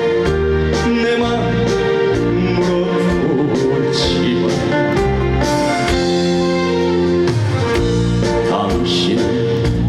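Instrumental interlude of a trot song: loud band music with a steady beat and held melody lines, between sung verses.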